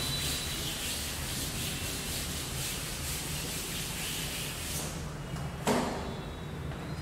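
Board duster scrubbed back and forth over a chalkboard, wiping off chalk writing in quick repeated strokes that stop nearly five seconds in. A single sharp knock follows a moment later.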